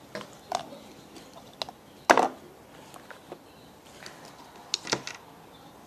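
A handful of light knocks and clicks from plastic dolls and toys being handled and moved about, the loudest about two seconds in.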